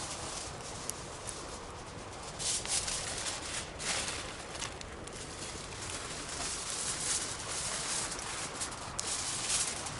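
Wood bonfire burning, its flames hissing steadily while the wood crackles with irregular sharp pops.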